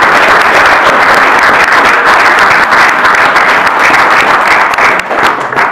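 Audience applauding: loud, dense clapping from many hands.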